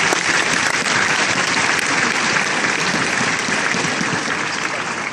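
Arena crowd applauding: dense, steady clapping that begins to die away near the end.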